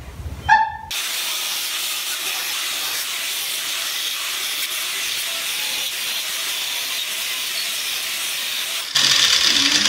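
Angle grinder grinding the metal hub of a steering wheel: a steady, high hiss that grows louder about nine seconds in.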